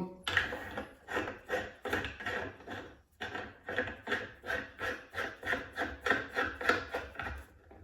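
The screw-on boiler cap of a Kambrook Cafe Espresso (Solac Express) stovetop-style espresso machine being twisted shut, its threads rasping in quick repeated strokes, about three to four a second, with a short pause about three seconds in.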